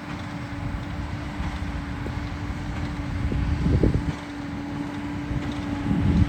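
Farm machinery engine running steadily with a constant low hum, while wind buffets the microphone in gusts, loudest about four seconds in and again near the end.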